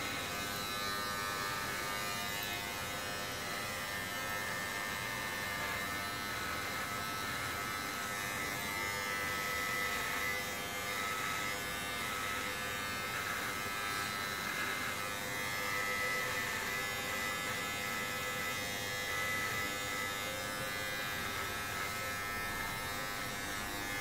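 Electric hair clippers running with a steady buzz, cutting through a beard.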